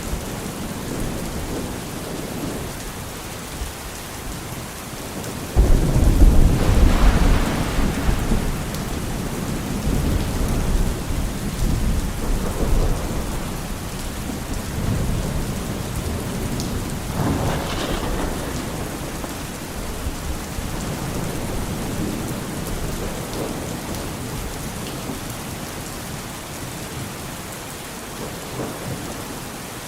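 Steady rain with thunder: a sudden loud crack about five and a half seconds in rolls on into a long rumble, and a second, weaker roll comes a little more than halfway through.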